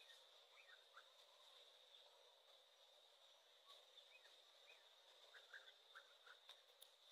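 Near silence: a faint, steady high insect drone, with a few faint short chirps scattered through, more of them near the end.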